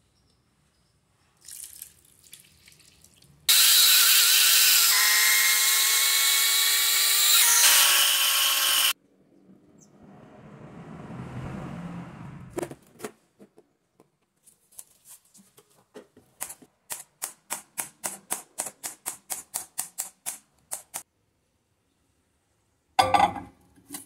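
Countertop blender motor running for about five seconds, grinding glutinous rice and water into batter, its pitch dropping just before it stops. Then thick rice batter pours into a glass bowl, followed by a run of quick, even clicks, about four a second, and a short clatter near the end.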